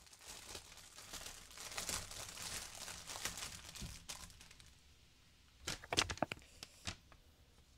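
Clear plastic packaging bag crinkling and rustling as it is opened by hand. About six seconds in there are a few sharp crinkles as the paper instruction sheet is pulled out and handled.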